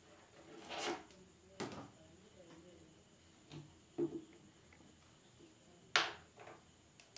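Handling noise from a small rubber-coated Sony SRS-XB10 Bluetooth speaker being picked up and turned over in the hands: a few soft bumps and rubs, the sharpest about six seconds in.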